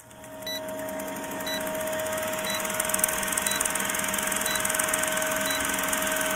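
Film projector sound effect for a countdown leader: a steady, fast mechanical clatter with a hum, fading in over the first two seconds, and a short high beep about once a second.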